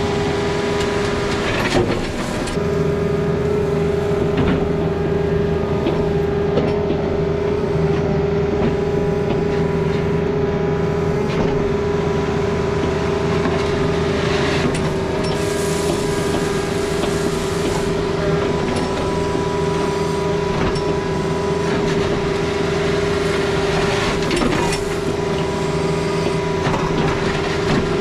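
Heavy diesel equipment running steadily, with a constant whine and a few clanks. The sound dips briefly about two seconds in, and a hiss comes and goes between about fifteen and eighteen seconds in.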